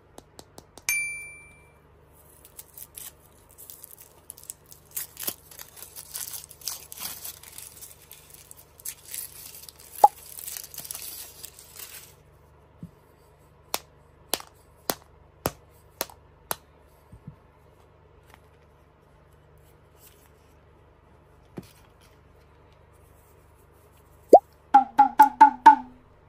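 Foil wrapper crinkling as it is peeled off a chocolate egg, then about half a dozen sharp taps as a small wooden mallet cracks the chocolate shell. A cartoon ding sounds about a second in, and a quick run of bouncy pitched pops comes near the end.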